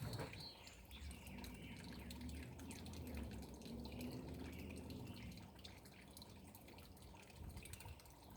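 Faint water dripping and trickling, with a low rumble underneath.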